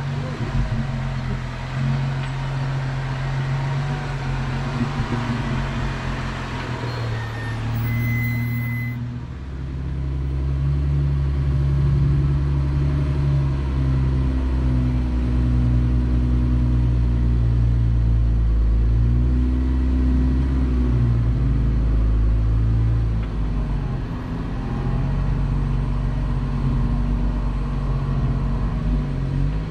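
Jeep Wrangler engine running steadily at low speed, crawling along a trail, its low hum wavering a little in pitch. A rushing noise over it fades out about nine seconds in, and the deep engine note then grows stronger.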